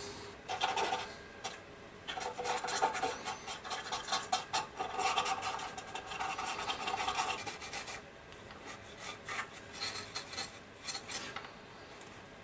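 Cotton bud and brush scrubbing over the plastic hull of a 1/35 scale tank model, wiping off an oil wash in quick, uneven rubbing strokes, with a short pause about eight seconds in before the strokes resume.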